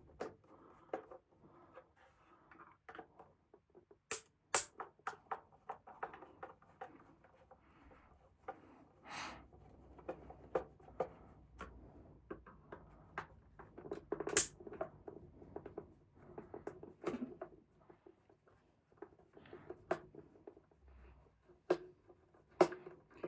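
Irregular clicks, taps and scrapes of hands and a tool working on a radio's plastic casing as it is opened up, with a few sharper knocks about four and fourteen seconds in.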